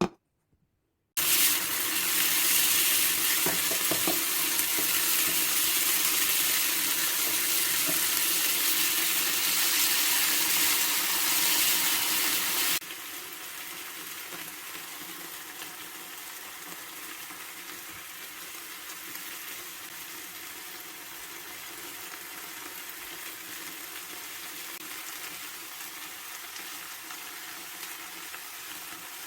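A kitchen tap running water with a steady hiss, cut off abruptly about halfway through. It gives way to a quieter, steady sizzle of food frying in a pan.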